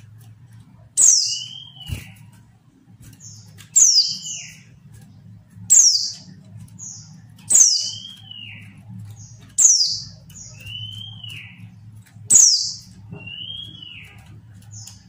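Female white-eye (pleci) calling about six times, roughly every two seconds: each call a sharp high note sliding downward, followed by a lower, arched note. This is the female call used to provoke a reluctant male pleci into singing.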